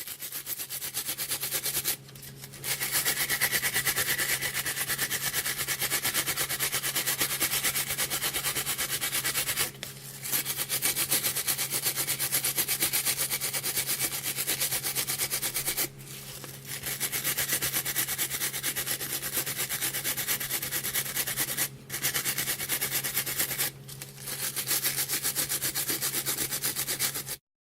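Stiff-bristled nail brush scrubbing with rapid back-and-forth strokes, a dense scratchy rasp in long runs broken by several brief pauses.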